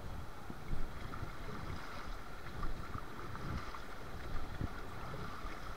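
River water rushing past a boat, with wind rumbling and buffeting on the microphone in irregular low thumps.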